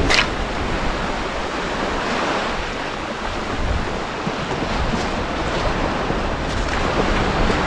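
Small waves breaking and washing up a pebble beach, with wind on the microphone. Right at the start, a brief falling whoosh as a beachcasting rod whips through a cast.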